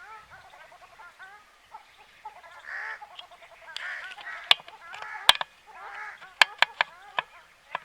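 A flock of birds calling over each other, many short overlapping calls, with a run of sharp clicks in the second half.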